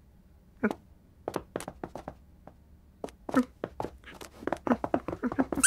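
Cartoon foley of a cat pouncing and batting at a laser dot on a floor: short soft thumps and taps, a few at a time at first, then coming quickly near the end.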